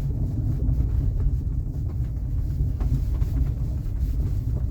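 Steady low road rumble inside the cabin of a Chery Tiggo 8 Pro Max on a rough road, with a few faint knocks that the owner takes for a worn steering rack.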